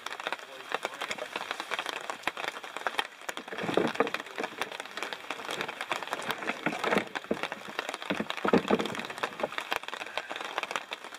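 Rain pattering and dripping, a dense scatter of small ticks over a steady hiss. A few louder rustling knocks come about four, seven and eight and a half seconds in.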